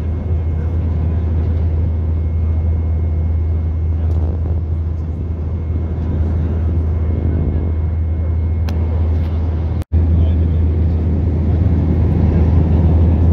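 Steady airliner cabin noise in cruise: a deep jet-engine drone under an even rush of airflow. It cuts out for an instant about ten seconds in, then carries on unchanged.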